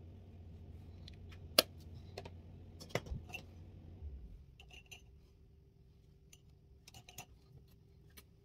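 Scattered small clicks and taps of makeup products and brushes being handled: one sharp click about one and a half seconds in, a cluster around three seconds, and a few lighter ones later. A low hum underneath drops away about four seconds in.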